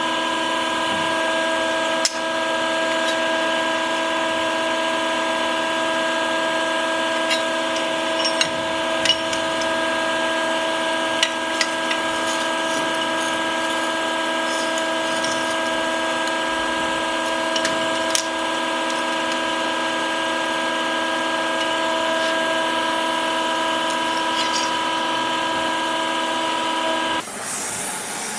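A workshop power tool motor running at a steady speed, a constant chord-like whine with a few small clicks over it. It stops about a second before the end and a hiss takes over.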